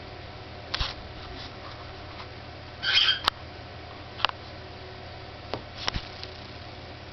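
A 23-day-old cockatiel chick gives one short raspy call about three seconds in, among a handful of sharp clicks and taps, over a steady low hum.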